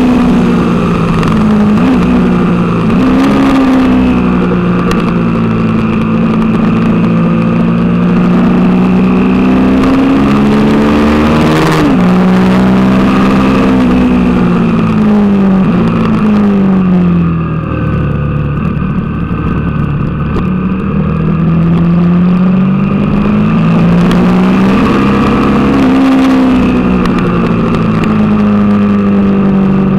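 Suzuki TL1000R's 996 cc V-twin engine heard onboard at track pace: the revs climb through the gears with quick drops at the shifts, fall away and stay low for a few seconds past the middle under braking, then climb again. A steady rush of wind noise runs under it.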